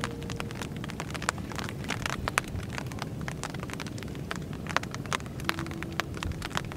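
Rain: many small irregular raindrop taps striking the camera and microphone, over a low wind rumble on the microphone.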